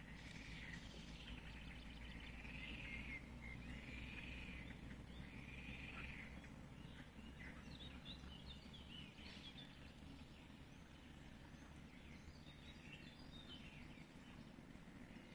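Faint songbird singing in a forest: a few short rising-and-falling whistled phrases in the first six seconds, then scattered quick chirps, over a steady low rumble.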